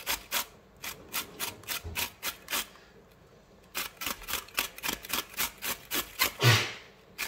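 Green chilli being grated on a stainless steel box grater: quick rasping strokes, about four or five a second. The strokes stop for about a second near the middle, then resume, with one louder, longer stroke near the end.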